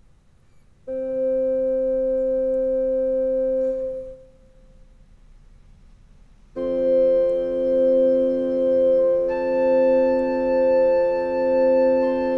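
Yamaha PSR-E263 portable keyboard playing held organ-like chords that do not fade. A first chord sounds for about three seconds and is followed by a short pause; a second chord then swells slowly and evenly and moves to new notes partway through.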